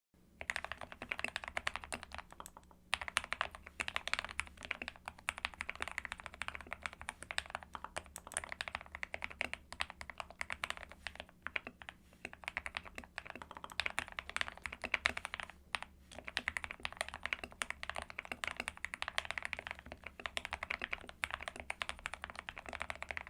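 Typing on a GK61/SK61 60% keyboard with lubed Gateron Yellow optical linear switches: rapid, continuous keystrokes with brief lulls about three seconds in and around sixteen seconds.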